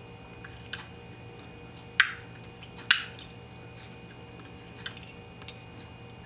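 Metal spoon and fork clinking and scraping against a bowl while working rice and chicken onto the spoon: two sharp clinks about two and three seconds in, with lighter taps scattered between.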